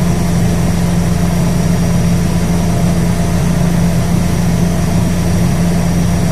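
A boat's engine running steadily, heard from on board as a constant low hum.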